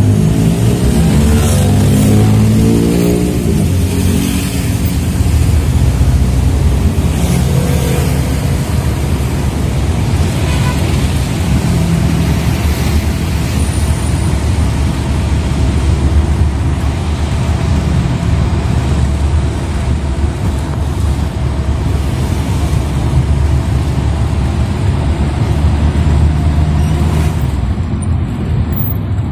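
Angkot minibus engine and road noise from inside the cabin while driving in traffic. The engine pitch climbs over the first few seconds as it accelerates, then settles into a steady drone.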